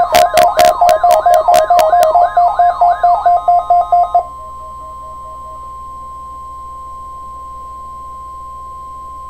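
Electronic emergency alert tones: a loud, rapidly pulsing, siren-like warble, about four pulses a second, stops about four seconds in. A single steady high tone then holds to the end.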